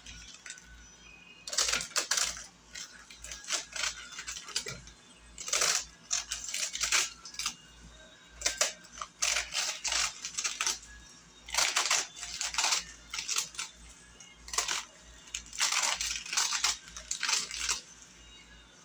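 Crisp crunching and tearing of fresh lettuce being cut up for a salad, in irregular bursts with short pauses between.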